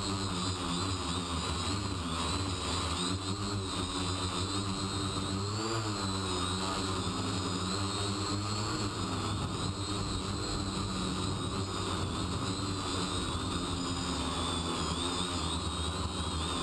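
X525 quadcopter's electric motors and propellers whining in flight, heard from a camera mounted on its frame, over a steady rush of air. The pitch drifts up and down as the throttle changes, swelling briefly about six seconds in.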